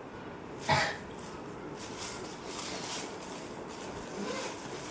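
A woman's single short, sharp sneeze about a second in, provoked during a sneezing challenge, followed by faint breathy sounds.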